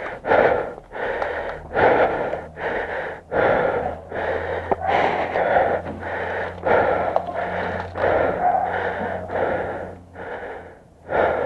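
Heavy, rapid breathing close to the microphone, a rush of air about twice a second, as from a player out of breath.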